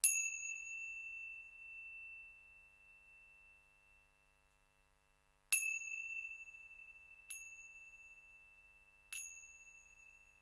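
A small metal bell-like percussion instrument struck four times, with a long pause after the first strike. Each strike rings out as a single clear high tone that slowly fades.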